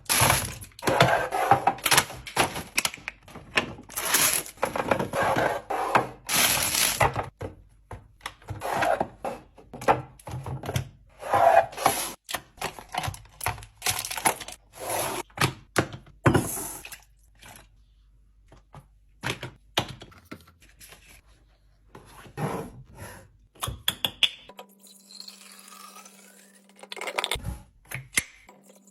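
Food containers and packaging being handled and set down while a fridge is restocked: a quick run of knocks, clunks, taps and crinkles. The handling thins out in the second half, and near the end a steady low hum comes in.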